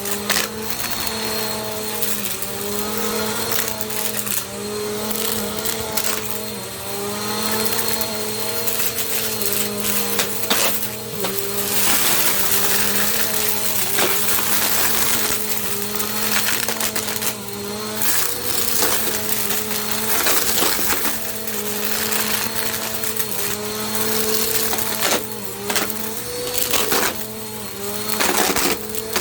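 Bissell compact vacuum cleaner running, its motor hum wavering slightly in pitch under a steady rush of air, with irregular clicks and rattles as it works over the floor.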